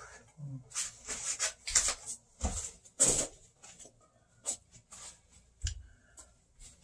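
Handling and movement noise: a string of short, irregular knocks and rustles as the phone is moved and the person shifts about, the most of them in the first half.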